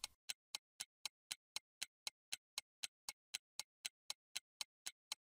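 A steady ticking timer sound effect, about four quiet ticks a second, counting off the time given to try the problem.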